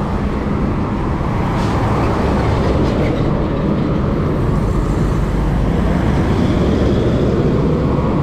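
Steady road traffic noise along a city avenue, heard from a moving bicycle.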